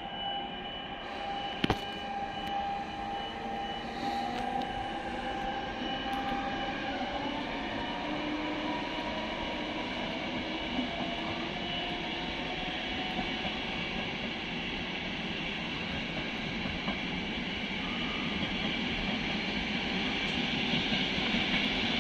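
Electric locomotive hauling a regional train through the station: steady running noise with a whine that rises in pitch about seven seconds in, getting gradually louder toward the end. A single sharp click near the start.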